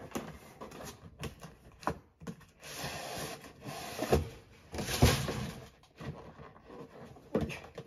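Cardboard boxes being handled and unpacked: rustling and scraping of cardboard with several knocks, the loudest about five seconds in.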